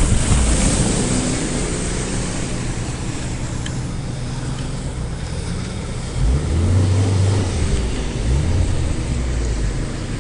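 Off-road vehicle engines running. The sound is loudest at the start and dies down, then an engine revs up briefly about six seconds in and again near eight seconds.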